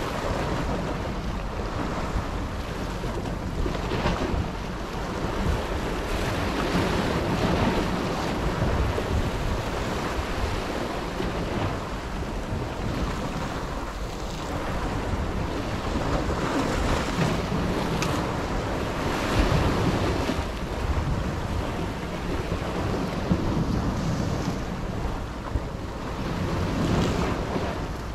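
Sea waves surging and breaking against a rocky shore, swelling and easing every few seconds, with wind buffeting the microphone.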